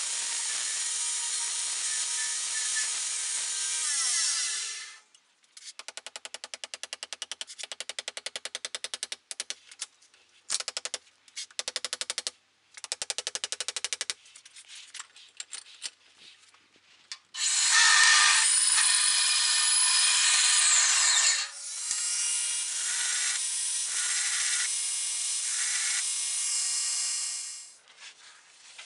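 Belt grinder sanding a wooden axe handle on its belt, then winding down with a falling tone about five seconds in. A power tool follows in short, rapidly repeated bursts, and then comes back for two long, loud steady runs.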